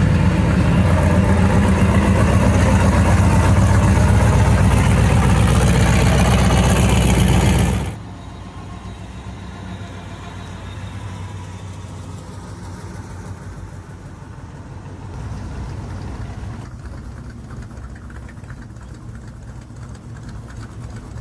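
A car engine idling loud and close, with a heavy low rumble, for about eight seconds; then the sound cuts abruptly to a much quieter low rumble.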